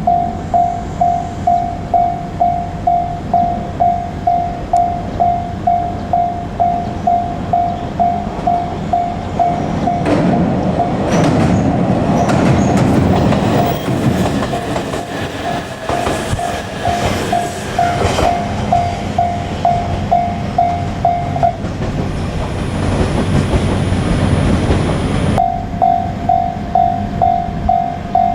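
Japanese level-crossing warning bell ringing in a steady rapid beat, about two strikes a second. A JR Kyushu 817 series electric train passes over the crossing for about ten seconds in the middle, loud over the bell. The bell stops soon after the train has passed, then starts ringing again near the end.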